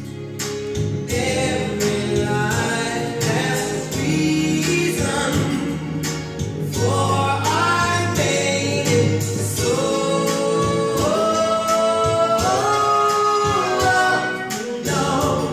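Choral singing with instrumental backing, playing from a vinyl record on a DIY turntable with a Denon tonearm. The music moves through changing phrases, then settles into long held chords in the second half.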